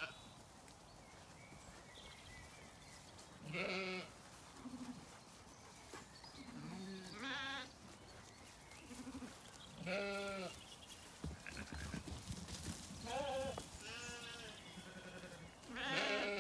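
Zwartbles sheep bleating, several separate wavering calls a few seconds apart.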